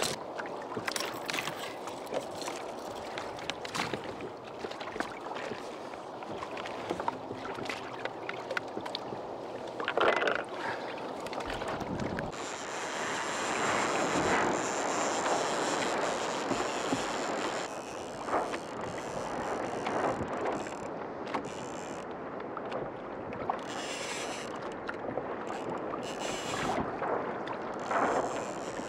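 Wind buffeting the microphone and water sloshing against a sailing kayak's hull, with scattered knocks; the noise swells for several seconds in the middle.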